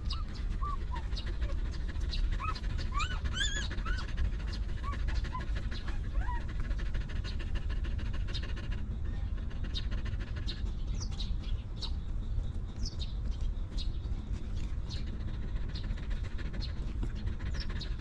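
Newborn puppies giving short, high, wavering squeaks, most of them in the first six seconds. Under them the mother dog pants steadily.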